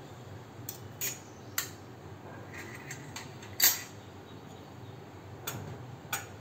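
Milk tea boiling in a steel pot on a gas burner: a steady low noise with a handful of sharp clicks, the loudest about three and a half seconds in.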